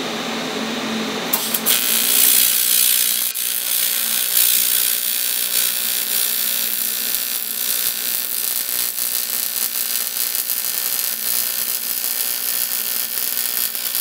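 AC TIG welding arc on 1/8 in aluminum flat stock from an AHP Alphatig 200x. The arc strikes about a second and a half in over a steady hum and then runs as a continuous buzz and hiss.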